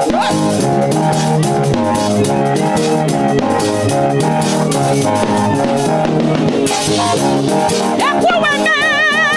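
Live praise band music with drum kit and sustained keyboard chords over a bass line. About eight seconds in, a high held note with a strong vibrato comes in over the band.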